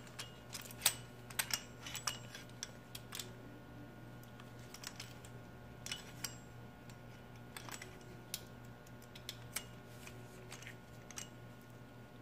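Light, irregular metallic clicks and taps from an S&S Quickee adjustable pushrod being threaded and handled by gloved hands in a Harley Twin Cam engine. The clicks come thickest in the first three seconds and grow sparse after. A low steady hum runs underneath.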